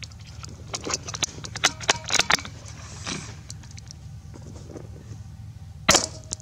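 A run of sharp metallic clicks in the first couple of seconds, then a single sharp crack of a .22 LR shot from a bolt-action Marlin XT-22 rifle about six seconds in.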